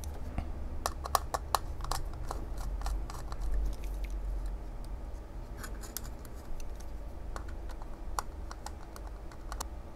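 Small clicks, ticks and scratches of a screwdriver working the screw terminals on a Vanderbilt PDM-i12 PIR detector's terminal strip, with the detector's plastic housing and resistor leads being handled; a quick run of ticks in the first two seconds, then scattered single clicks.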